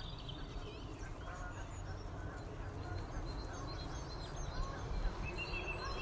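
Countryside ambience: scattered bird calls and chirps over a steady low rumble.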